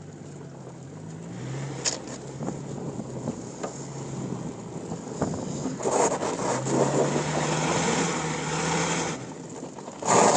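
Towing Mitsubishi Pajero's engine droning, its pitch stepping up and down, under the rush of a snowboard sliding over snow. The rushing gets much louder from about six seconds in, and there is a short loud burst near the end.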